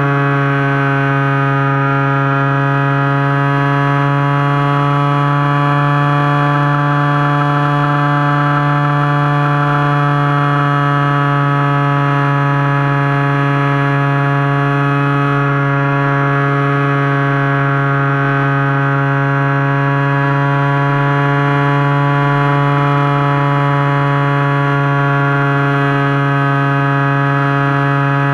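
Turnigy G10 brushless outrunner motor and 10x6 propeller of an FPV model plane, heard from onboard, running at steady throttle: a constant, level-pitched whine.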